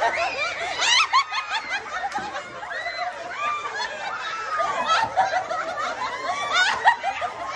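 A group of people laughing and giggling together, several voices overlapping, with a few loud bursts of high laughter, the loudest near the end.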